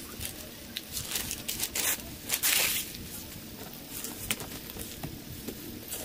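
Newspaper sheets rustling and crinkling as they are handled and spread flat, in short scattered rustles with one longer, louder rustle about two and a half seconds in.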